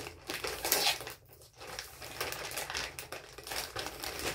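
Plastic courier mailer bag crinkling as hands work at its sealed top trying to open it, in irregular rustles, loudest a little under a second in.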